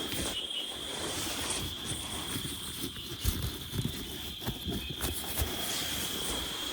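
Steady high-pitched drone of chirping insects such as crickets, with irregular low thumps and rumbles over it.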